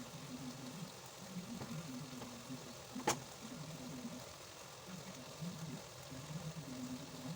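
Pot cooking on the stove, with a steady faint hiss, a low broken hum underneath, and a single sharp knock about three seconds in.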